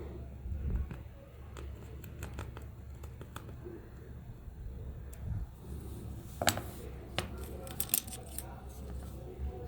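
Scattered small clicks, snips and scrapes of hand tools working on a small plastic toy, with two sharper clicks, one about six and a half seconds in and one about eight seconds in.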